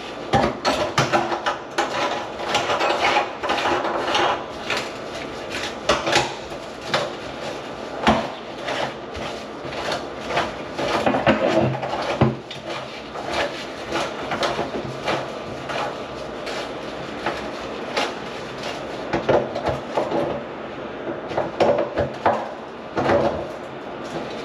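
Irregular knocking, clanking and scraping of hands and tools on the brass drain trap and pipework under a kitchen sink, many short knocks with brief pauses between.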